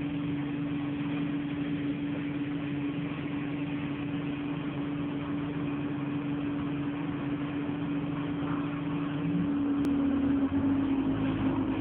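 ADL Enviro200 Dart single-decker bus engine heard from inside the bus, idling with a steady drone. About nine and a half seconds in the engine note rises and the sound gets louder and deeper as the engine takes load, the bus pulling away.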